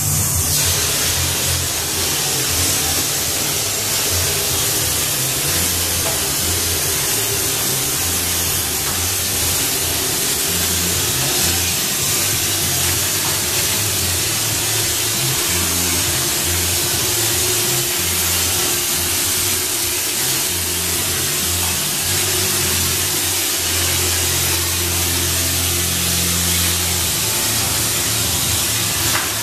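Drywall hopper texture gun spraying texture mud for a knockdown finish: a steady hiss of air and spray. Music plays underneath.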